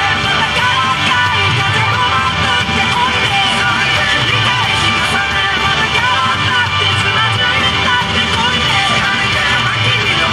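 Loud rock-style yosakoi dance music with electric guitar.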